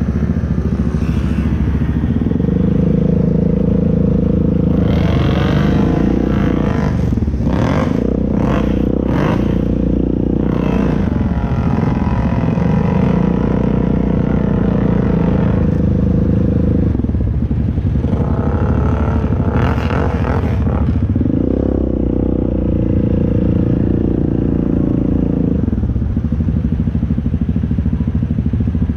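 ATV engine running under load, its note stepping up and down with the throttle. Harsh noisy spells run through it, once about a third of the way in and again around two-thirds.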